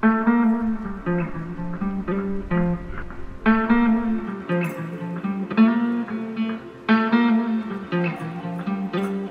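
Background music: a guitar strumming chords in a repeating pattern, with a fresh chord struck about every second.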